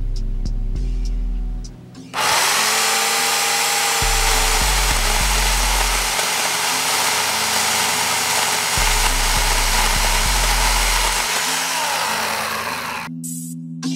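Remington 2-in-1 convertible electric chainsaw starting up about two seconds in and running through a branch: a steady high motor whine with the rasp of the chain in the wood. It cuts off suddenly near the end. Background music with a bass beat plays throughout.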